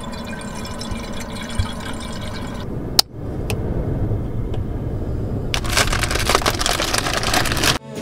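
Water pouring and running while being filled and filtered for boiling. A sharp click comes about three seconds in, and the water noise grows louder from just past halfway before cutting off suddenly near the end.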